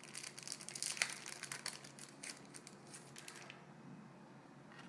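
Small clicks and rustling from a laptop RAM module being handled and fitted into its memory slot, with one sharper click about a second in. The handling noise stops after about three and a half seconds.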